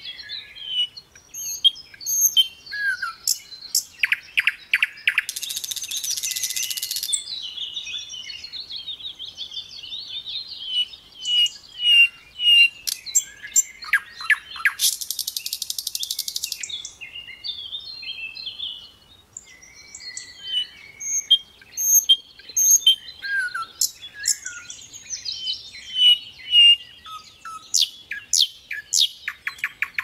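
A sikatan londo (flycatcher) singing a fast, dense, varied song of chirps, whistles and trills, with mimicked phrases of other birds. Two long harsh hissing bursts come about a quarter and half of the way in, and a rapid rattling trill comes near the end.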